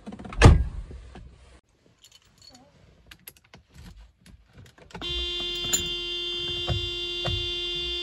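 Mercedes W124 car door shutting with a heavy thunk about half a second in, followed by faint clicks and rustling. From about five seconds a steady single-pitched tone sounds, with a few soft thumps under it.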